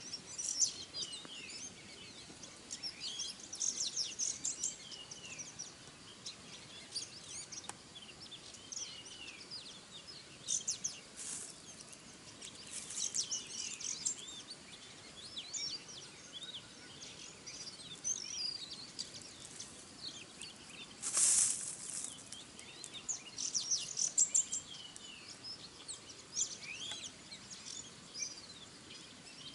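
Many small wild birds chirping and singing: quick, high, down-slurred notes, with a brief loud rustle about 21 seconds in.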